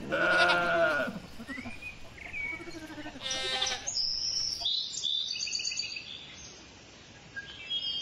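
Goat bleating: one long, wavering bleat at the start and a shorter, quavering bleat about three seconds in, followed by high chirping in the second half.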